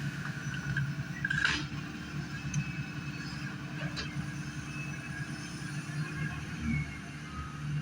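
A machine's engine running steadily with a low pulsing rumble, with a brief sharp sound about a second and a half in.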